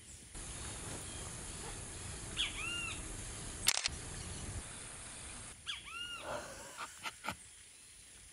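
A bird giving short, arching call notes a few seconds apart, with sharp clicks of a camera shutter around the middle and a quick run of them near the end. A steady hiss lies under the first half.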